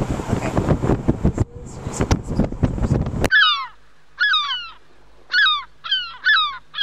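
Rough noise with wind and clicks for about three seconds, then an abrupt cut to a series of loud bird calls over a quiet background. Each call is a falling note, coming about once a second, some of them in quick pairs.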